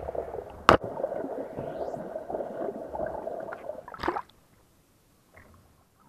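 Muffled bubbling and sloshing of water heard through an action camera's waterproof housing held underwater. There is a sharp knock about a second in and another near four seconds, after which the sound drops almost to nothing.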